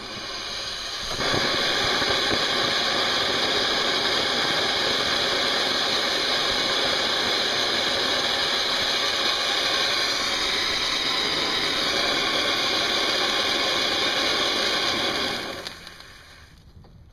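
Fountain firework spraying sparks: a loud, steady hiss that builds up over the first second, holds for about fourteen seconds, then dies away near the end as the fountain burns out.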